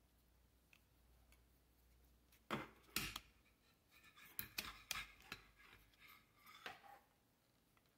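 Plastic clicks and rattles from a selfie stick's phone clamp being handled and swivelled: two sharp clicks a little before three seconds in, then a run of lighter clicks between about four and seven seconds.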